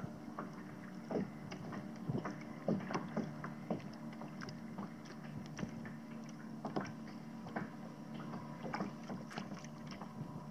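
Small waves lapping and slapping against a sit-on-top kayak's hull in irregular light splashes, over a faint low steady hum.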